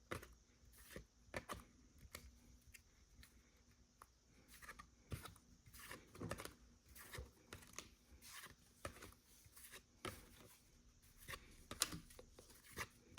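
Trading cards being flipped through one at a time: faint, irregular soft slides and clicks of card against card, about two a second, with a couple of sharper clicks near the end.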